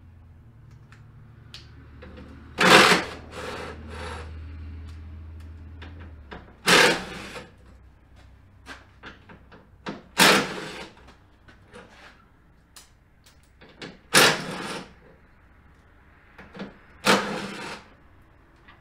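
Handheld cordless drill-driver run in five short bursts, each under a second and a few seconds apart, working the fasteners along the top of a pickup's grille. Small clicks and knocks of handling come between the bursts.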